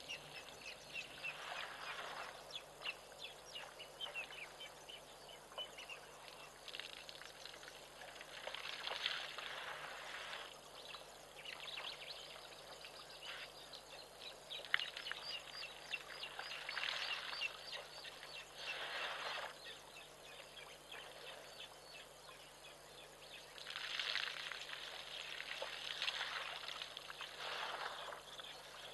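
Outdoor ambience: several birds chirping and calling at a low level, with a few brief, swelling rushes of noise coming and going.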